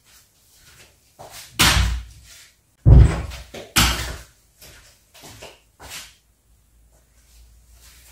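Household bangs and knocks: three loud thuds between about one and a half and four seconds in, the loudest around three seconds, followed by a few lighter knocks.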